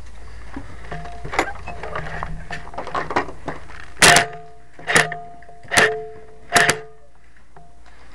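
Airsoft M4 rifle firing four single shots a little under a second apart, loud and sharp right at the muzzle, after a run of faint clicks and rattles.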